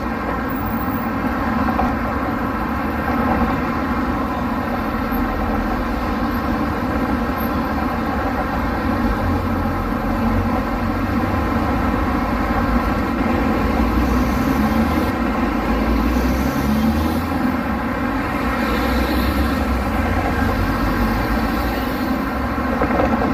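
Street traffic: car engines and tyres running steadily, with a low rumble that swells and eases as vehicles pass.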